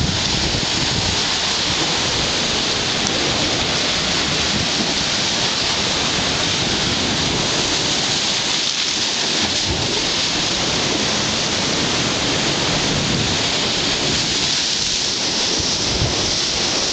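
Ocean surf breaking and churning among coastal rocks, a steady loud rushing hiss with an uneven low rumble beneath it.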